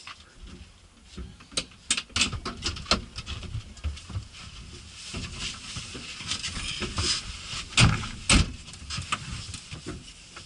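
People climbing into the back seats of an open-sided, soft-topped vehicle: irregular knocks, clicks and rustling, with two heavy thumps about eight seconds in.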